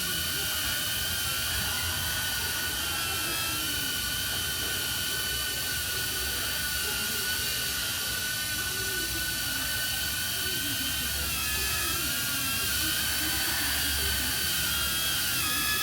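DJI Neo mini drone flying on Gemfan D51 five-bladed propellers: a steady high-pitched propeller whine whose pitch wavers up and down as the throttle changes, more so in the second half.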